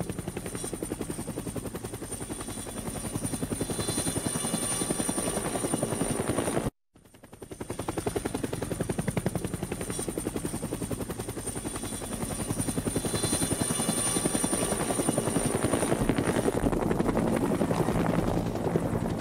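Rapid, steady mechanical rattle with a thin high whine. It cuts out for a moment about seven seconds in, starts again, and grows somewhat louder later on.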